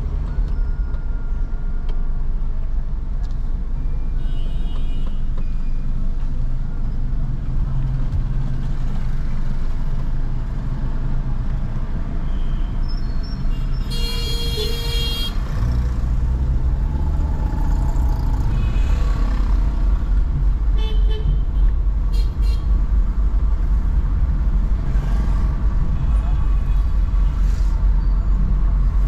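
Steady low rumble of a car driving through city traffic, heard from inside the car, with several short horn toots from the surrounding traffic. The loudest toot comes about fourteen seconds in and lasts over a second.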